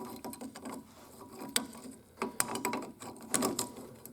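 Irregular metallic clicks and scrapes of a wrench turning a nut off a hydraulic cylinder, the nut coming loose after being freed with heat.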